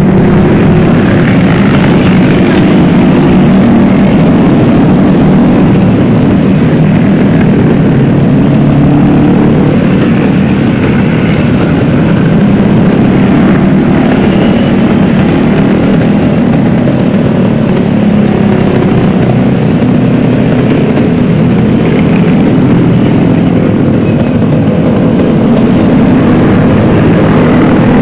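Loud, steady motorcycle traffic noise heard from a moving motorcycle: engines running among a convoy of bikes, with no let-up or sudden events.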